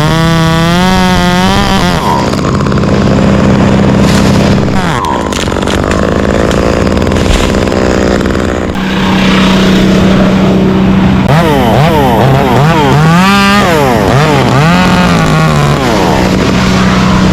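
Engines running: a steady engine drone, with an engine revved up and down in quick swings near the start and again in the second half.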